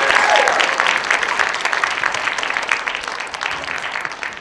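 Audience of students and parents applauding, the clapping gradually dying down toward the end.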